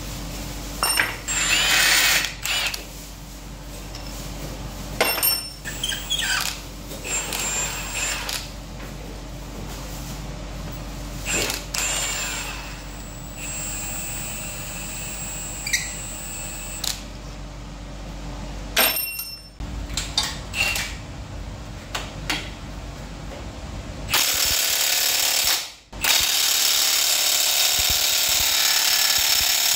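Workshop tools on the metal parts of a Peugeot XK4 engine and gearbox being taken apart: scattered metal clanks and knocks. About three-quarters of the way through, a loud steady power-tool noise starts suddenly and drops out briefly once.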